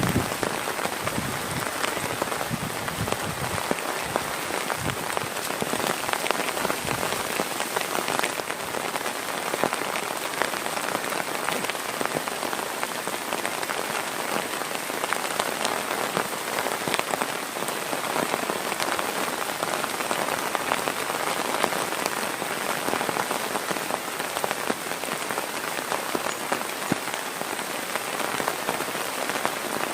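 Heavy rain falling steadily, a dense patter of drops striking a surface, with a few soft low thumps in the first several seconds.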